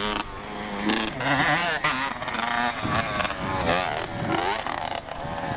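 Motocross bike engine revving up and down as it rides the track, its pitch rising and falling several times.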